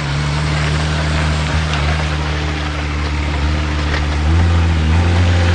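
Large truck engine running steadily with a low hum, its note growing louder and heavier about four seconds in.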